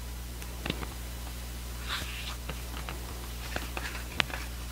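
Pages of a glossy photo book being turned by hand: soft paper swishes and light taps, with one sharper click about four seconds in.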